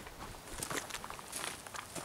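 Footsteps crunching over dry twigs and leaf litter on a forest floor, several uneven steps coming closer.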